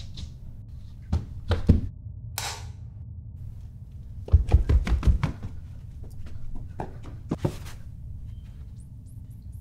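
Footsteps thudding on stairs and floor: a few steps, then a quick run of heavy steps about four seconds in, and a couple of single steps near the end. A short hissing swish comes about two and a half seconds in.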